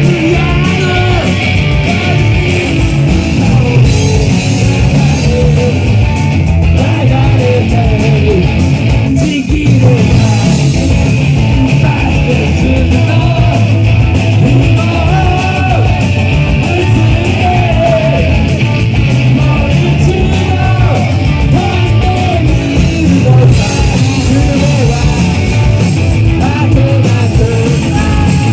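Live rock band playing loud through a small club's PA, heard from the audience: electric guitars including a Gretsch hollow-body, electric bass and drums, with singing.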